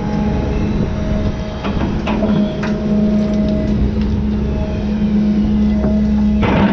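John Deere 210G excavator running under hydraulic load, with a steady engine hum, a higher whine and scattered clicks and rattles of dirt and rock. Near the end comes a loud short crunch as the bucket digs into the dirt.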